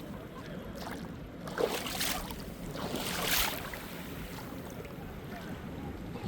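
Sea water washing at the shore, swelling twice in hissing surges a little after a second and a half and around three seconds in, over a steady low rumble of wind buffeting the microphone.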